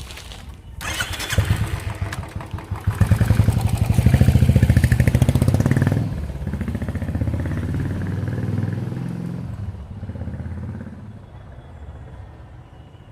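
Royal Enfield Bullet single-cylinder engine breathing through an older Classic stock exhaust. It starts about a second in and revs hard for a few seconds with a rapid thump, then drops back to a lower, steadier beat that fades toward the end.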